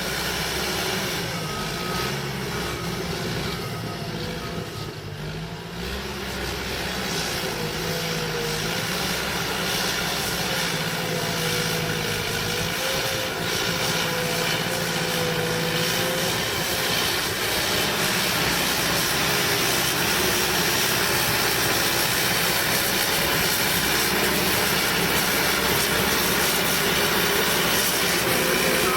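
Cat D5K bulldozer's diesel engine running under load with a steady whine, pitch wavering as it works. The sound dips slightly a few seconds in, then builds and holds a little louder for the rest.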